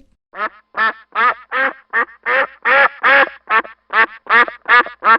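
A duck quacking in a steady series of about thirteen short, evenly spaced quacks, two to three a second.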